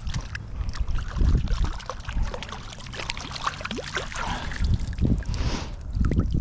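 River water splashing and sloshing irregularly around a hooked brown trout being brought in, with a bigger splash about five seconds in and low thumps throughout.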